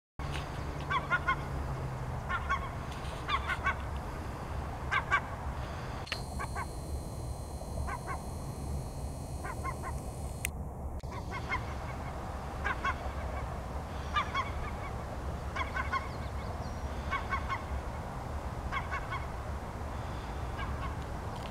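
Geese honking repeatedly, short calls often in pairs about every second, over a steady low rumble.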